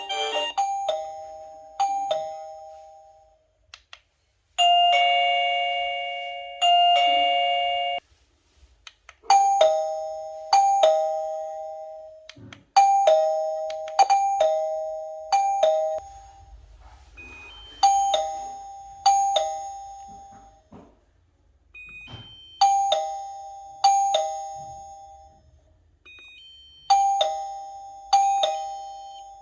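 Wireless doorbell chime ringing a two-note ding-dong over and over, each note ringing out and fading. A different, longer pair of chime notes sounds about five seconds in. In the second half a short high beep comes just before some of the rings.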